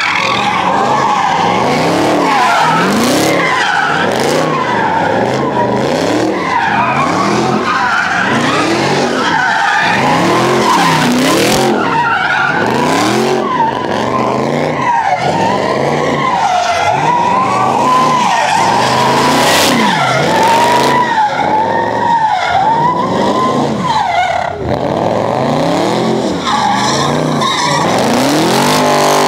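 A Dodge V8 muscle car drifting, its engine revving up and down over and over while the rear tyres squeal in a long, wavering screech.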